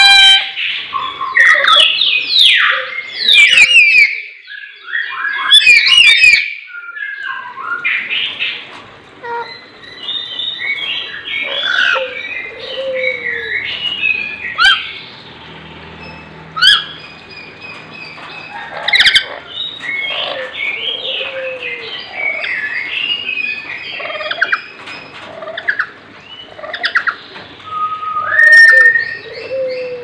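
Lories calling: a dense run of loud, shrill squawks and chattering whistled calls, busiest in the first several seconds, with a few sharp clicks scattered among them.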